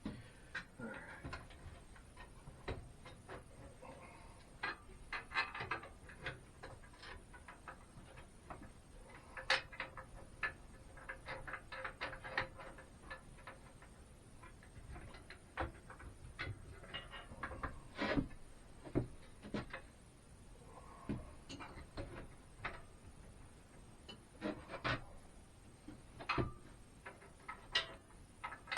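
Irregular clicks, clinks and knocks of metal hardware and tools being handled while bolts, washers and nuts are fitted, a few with a brief metallic ring.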